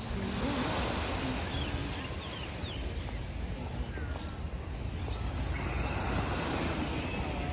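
Outdoor ambience by the water: wind rumbling on the microphone over a steady wash of background noise, with a few short, faint, high chirps about three seconds in.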